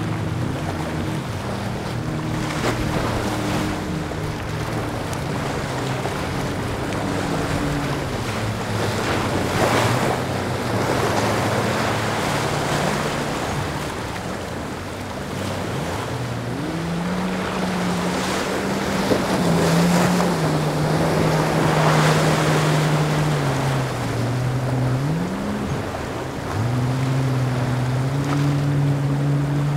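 A cabin cruiser's engine running through rough inlet water, its pitch falling and rising several times as the throttle changes, with the splash and wash of breaking waves surging loud and soft over it.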